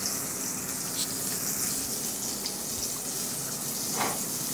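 Steady sizzling hiss from a steel pot of rice and beans cooking on the stove, with a few faint clicks and a short falling squeak near the end.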